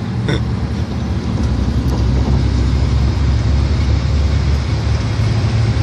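Steady low drone of a truck's engine and road noise heard from inside the cab while driving on the highway.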